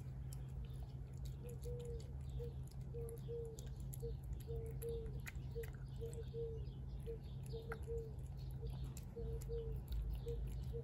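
Cat chewing shredded chicken from a plate, with soft scattered clicks. Over it, short notes of one low pitch repeat irregularly, about twice a second, starting about a second and a half in. A steady low rumble runs underneath.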